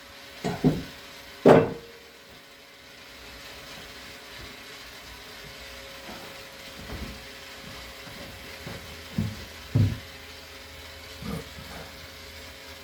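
Hammer blows on the bent blade tips of a stainless steel boat propeller being straightened. Three sharp strikes come in the first two seconds, then lighter, spaced-out knocks over a steady background noise.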